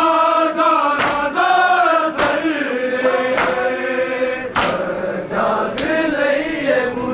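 Crowd of men chanting a mourning noha in unison, held notes sliding slowly in pitch, with a sharp slap of chest-beating (matam) in time about every second and a bit.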